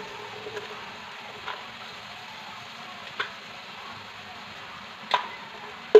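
Sweetened sweet potato chunks sizzling steadily in a wok, with a few faint clicks scattered through.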